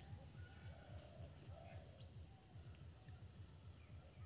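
Faint, steady high-pitched chorus of insects, over a low rumble on the microphone.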